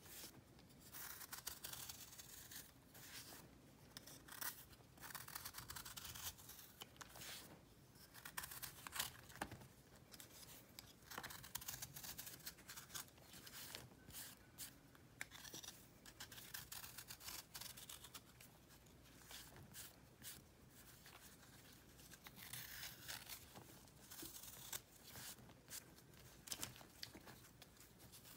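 Snap-off utility knife blade shaving and scraping a block of pressed crunchy powder, with flakes breaking off and crumbling: a quiet, close run of short crisp scrapes and crackles, one after another.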